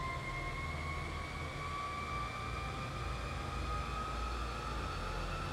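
Meepo City Rider 3 dual-motor electric skateboard at full throttle on a dyno roller, its electric motors whining with a pitch that rises slowly as they spin the drum up, over a steady low rumble from the wheels and drum.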